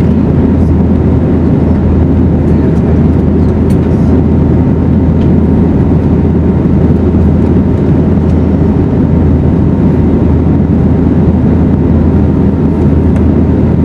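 Steady cabin noise of an Airbus A320neo in flight: the even rush of engine and airflow noise with a deep hum underneath, unchanging throughout.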